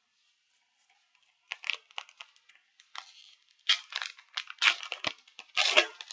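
Foil booster pack wrapper crinkling and tearing as it is pulled open by hand, in irregular crackling bursts that start about a second and a half in and get louder in the second half.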